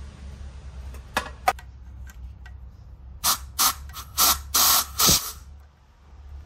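Short blasts of compressed air from an air nozzle held to the fluid port of an ENDLESS racing brake caliper, forcing its stuck pistons out: about five bursts, the fourth the longest, with air leaking at the nozzle tip. Two light clicks come before them.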